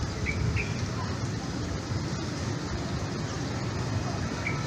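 Steady low rumble of distant road traffic. A pair of short high chirps sounds near the start and again near the end.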